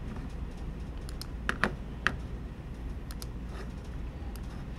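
Sharp clicks from a computer mouse and keyboard being worked at a desk, over a steady low hum. The loudest are three clicks close together about one and a half to two seconds in, with a few fainter ticks later.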